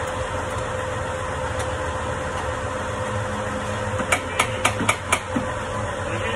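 Five quick, sharp knocks, a little past halfway through, from tools and parts being handled at a diesel truck engine during hand work. Beneath them runs steady shop background noise with a constant hum.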